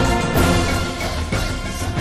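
Instrumental background theme music with sustained notes and a low bass line.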